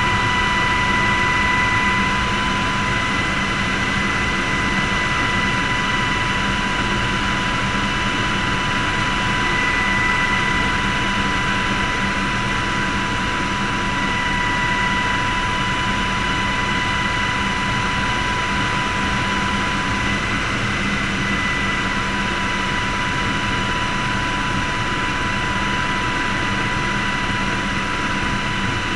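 Helicopter in steady flight, heard from inside the cockpit: an unchanging engine whine with a steady high tone over a broad rumble.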